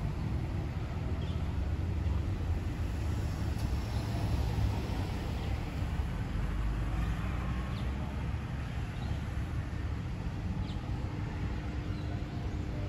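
Street traffic ambience: a steady low rumble of cars on the road, with a few faint short high chirps over it.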